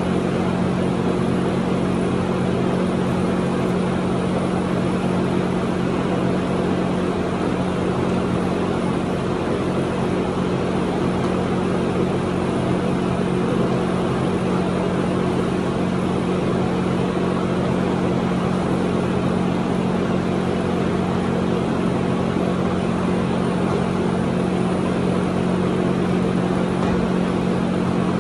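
A machine motor running steadily: a constant hum held at one pitch over an even rush of air, unchanging throughout.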